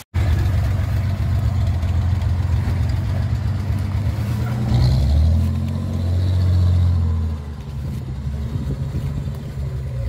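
Engine of a small off-road buggy working under load as it climbs out of a deep sandy rut. It starts abruptly, revs up about five seconds in, and eases off a couple of seconds later as the buggy drives on.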